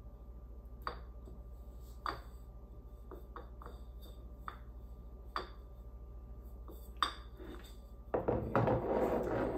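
Scattered light clicks and taps of fingers and frosted glass soap-dispenser bottles as a label sticker is smoothed onto one of them, then a louder stretch of rubbing and scraping about eight seconds in as the bottles are handled.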